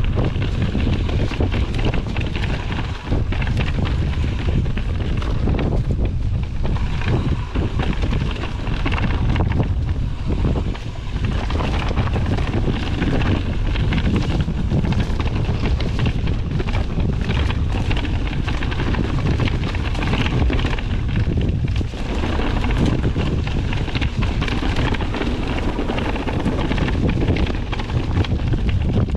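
Strong wind buffeting the microphone, with a heavy low rumble and frequent short knocks and clatters mixed in.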